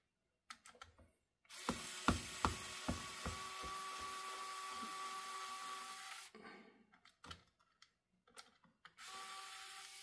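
Small electric screwdriver running with a steady whine as it backs out Phillips screws from a laptop's internal frame, with a few sharp clicks as the bit engages. It runs for about five seconds, then again briefly near the end.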